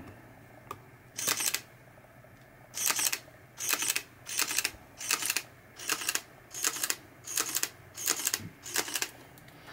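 Sony A7R mirrorless camera's mechanical shutter firing about nine times in a row, each release a quick double click, roughly one shot every 0.7 to 0.8 seconds after the first two.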